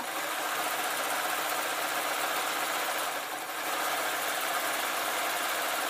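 Electric sewing machine running steadily, stitching two fabric panels together, with a brief slight easing of speed about halfway through.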